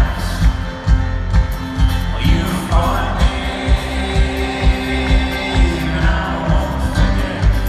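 Live folk-rock band music with singing over a concert PA, heard from the audience, driven by a steady beat.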